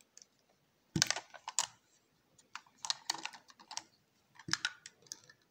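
Clicks and plastic rattles of a clear plastic waterproof action-camera housing being unlatched and opened by hand, in several short bursts of clicking.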